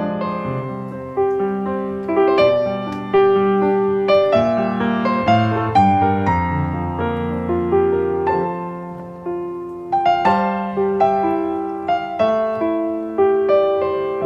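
Background piano music: a light melody of single notes, each struck and dying away, over lower held notes.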